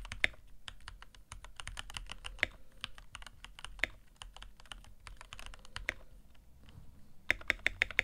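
Keychron K8 Pro mechanical keyboard being typed on, a continuous patter of key clacks, in its stock state with no spacebar tape and the original keycaps. A quicker, louder run of keystrokes comes near the end.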